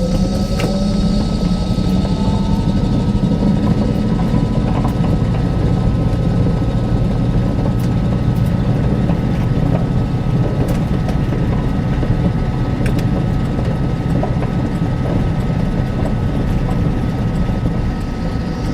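Electric van's three-phase induction motor and inverter whining as it drives, over a steady low road rumble. The whine climbs in pitch over the first couple of seconds as the van picks up speed, then holds steady alongside a constant high tone.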